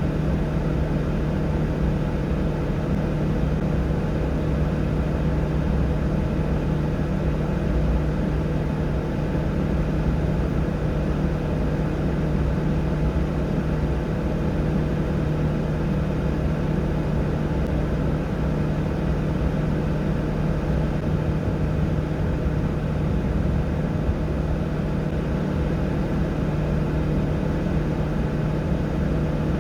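An engine running steadily with a constant low hum that holds one pitch throughout.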